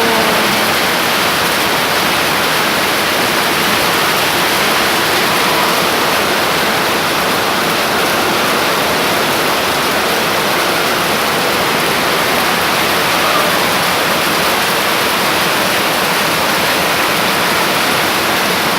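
Heavy rain pouring down in a steady, loud downpour, with water rushing and splashing.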